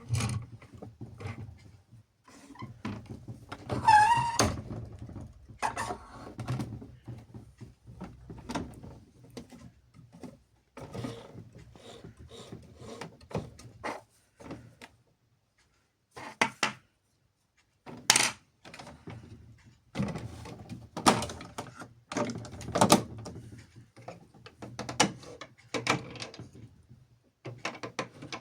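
Plastic toy washing machines being handled and operated: irregular clicks and knocks like doors shutting and dials and buttons being worked, with a low hum under parts of it and a short wavering tone about four seconds in.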